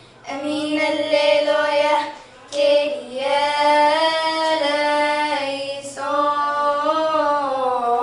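Two children singing a church hymn unaccompanied, in long held, gently wavering phrases, with brief breaths about two seconds in and again just before six seconds.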